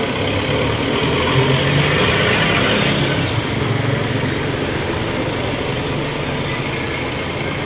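Pressure washer running: a steady motor hum under the hiss of its high-pressure water jet spraying into a truck's engine bay, the hiss swelling a couple of seconds in.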